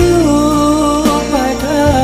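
Background music: a song with a held, sliding sung melody over a steady accompaniment.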